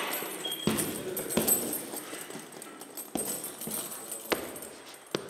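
Punches landing on a hanging heavy punching bag: about six separate thuds at an uneven pace.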